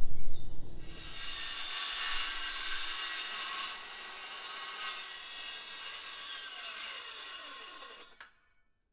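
Handheld circular saw ripping a 1-inch PVC decking board lengthwise, a steady whining cut that grows fainter as the saw moves away along the board. The cut starts about a second in and stops abruptly near the end.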